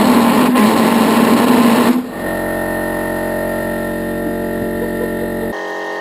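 HobbyKing pulse jet engine running: a loud, steady low hum under a rushing noise for the first two seconds, then an abrupt cut to a quieter, steady run with several held tones.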